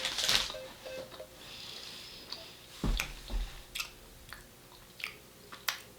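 Chewing and crunching a hard, caramel-filled Dutch stroopwafel: irregular crisp crunches and clicks, the loudest just after the start.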